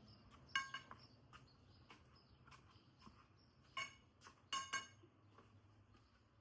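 A few short, ringing metallic clinks over a faint steady hum, as wires are handled and pushed through an electrical panel; the clinks come once about half a second in, then three times close together near four to five seconds.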